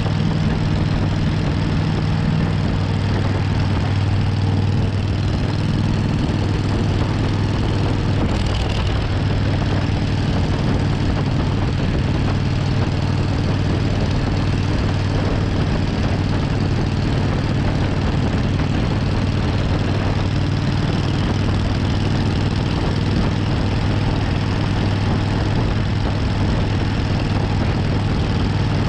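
Suzuki Intruder 1400's V-twin engine running at steady revs while riding, a constant low drone over a steady rush of noise.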